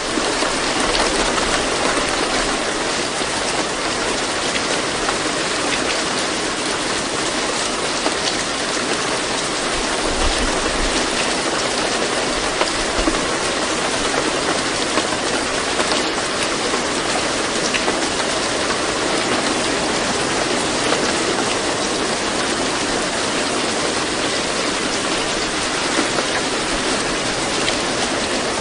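Steady rain, an even hiss of falling rain with faint scattered drop ticks.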